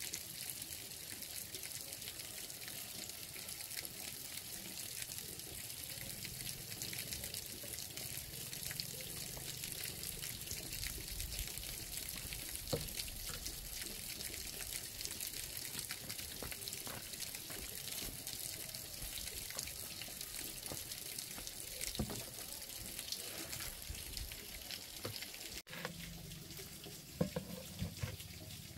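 Water running steadily in a continuous hiss, with a few light knocks, and some clatter near the end.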